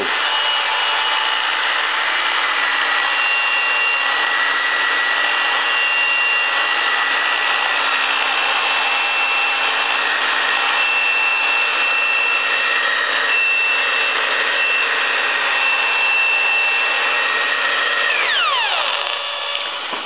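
Hairdryer running, a steady rush of fan and motor noise, with steady high whining tones from an AM radio tuned to static picking up the dryer's electromagnetic interference. About two seconds before the end a whine sweeps downward in pitch.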